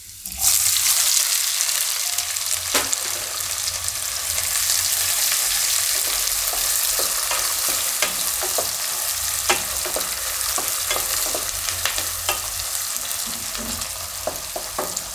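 Chopped onions sizzling in hot oil with cumin seeds and green chillies in a kadai. The hiss starts suddenly about half a second in as the onions hit the oil and then holds steady, with scattered clicks of a spatula stirring them against the pan.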